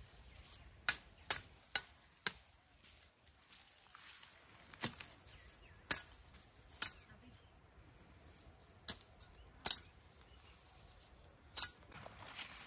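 A knife blade cutting through tall grass stalks: about ten sharp chops at irregular intervals, four in quick succession near the start.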